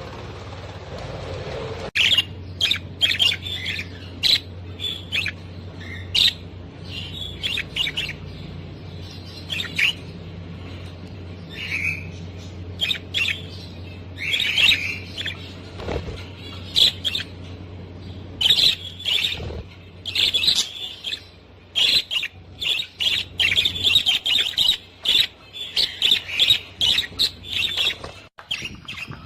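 A flock of budgerigars chattering and chirping in an aviary, many short overlapping calls from about two seconds in onward, over a steady low hum.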